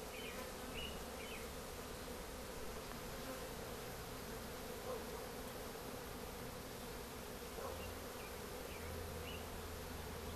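A swarm of honey bees buzzing in a steady, even hum.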